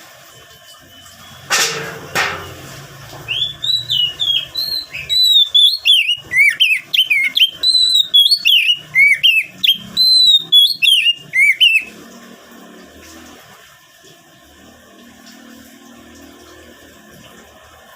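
Oriental magpie-robin singing a fast, loud run of varied whistled notes that sweep up and down, starting about three seconds in and stopping about twelve seconds in. Two sharp knocks come shortly before the song.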